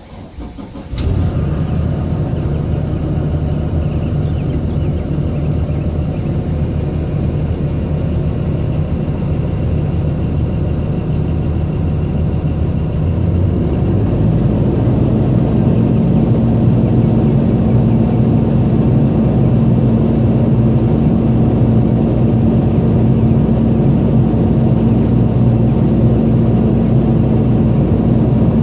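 Cummins B6.7 inline-six turbodiesel of a 2019 Thomas Saf-T-Liner C2 school bus starting about a second in and then idling steadily. About 14 seconds in, the idle rises to a slightly higher, louder note.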